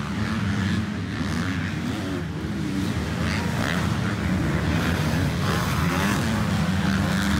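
Several motocross bikes racing round a dirt track, their engines blending into one steady drone.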